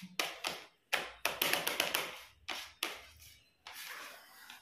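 Eating by hand off a ceramic plate: a quick, irregular run of sharp taps and clicks, easing after about three seconds into a softer rustle near the end.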